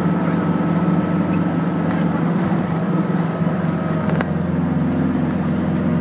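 Route bus engine running steadily, heard from inside the passenger cabin, with road and tyre noise. The engine note shifts slightly about four seconds in, and there is a single sharp click at the same point.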